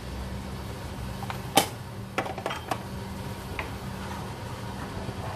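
A few sharp clicks and knocks of kitchen utensils as ground pepper is spooned from a spice container into a nonstick frying pan of simmering sauce and stirred with a wooden spatula; the loudest click comes about a second and a half in, then a quick cluster of lighter taps. A steady low hum sits underneath.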